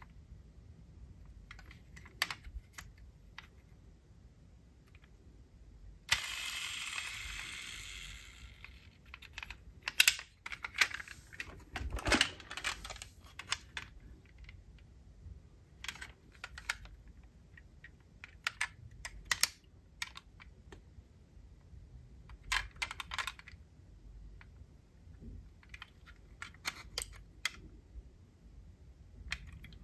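Diecast metal model cars being handled: scattered sharp clicks and taps of small hard parts, with a louder cluster about ten to thirteen seconds in. A hiss starts suddenly about six seconds in and fades over the next three seconds.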